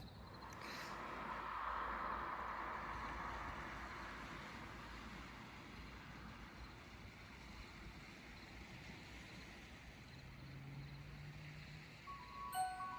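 A faint, steady rushing noise that swells about two seconds in and slowly fades, with a faint low hum near the end.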